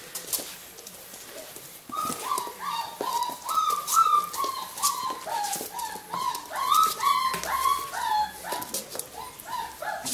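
Puppies whining and yipping in a rapid run of short, falling cries, about three a second, starting about two seconds in, over scuffling clicks as they tug at a dead bird.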